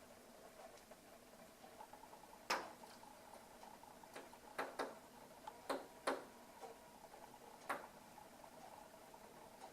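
A bird pecking on window glass: about six sharp, irregular taps, some in quick pairs.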